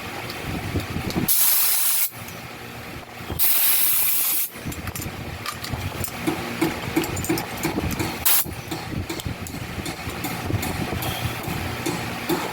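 Two bursts of hissing compressed air, the second about a second long, then a brief third puff: air being pushed into a bicycle's rear tyre through the valve stem, with a steady low rumble behind.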